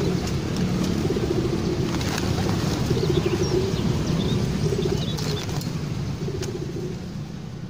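A large flock of feral pigeons cooing together in a dense, continuous chorus, with wings flapping and a few higher chirps. It fades somewhat near the end.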